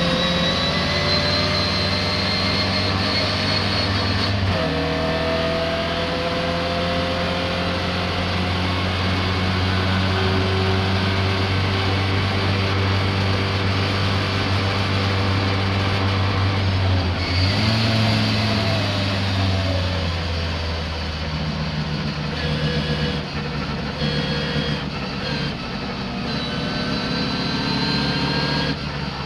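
Racing car engine running at speed, its pitch changing sharply about four seconds in and again near eighteen seconds.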